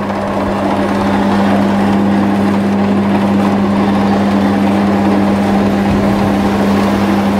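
Maksindo MKS-350 powered noodle-cutting machine running with a loud, steady hum while its 6 mm cutter rollers slice a sheet of dough into wide noodles.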